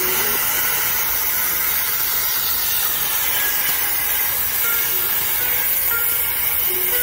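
CNC plasma cutter torch hissing steadily as it cuts steel plate.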